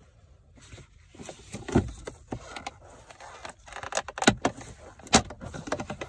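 Plastic centre-console trim and gear-lever boot being pulled free around the gear selector of a Mercedes C-Class: handling rustle broken by several sharp plastic clicks and snaps, the loudest three coming between about four and five seconds in.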